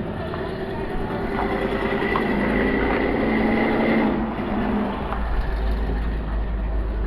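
Vehicle noise: a steady rumble with a thin whine over it that stops about four seconds in.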